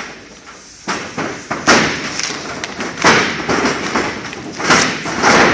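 Wrestlers hitting the wrestling ring's canvas: a series of heavy thuds and slams, about half a dozen, spaced irregularly.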